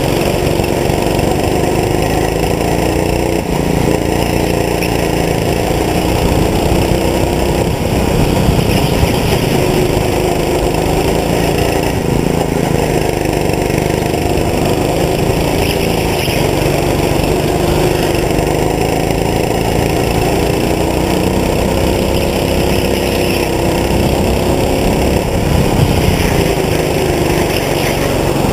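Go-kart engine running hard, heard from on board, its pitch rising and falling again and again as the kart speeds up on the straights and slows for the corners.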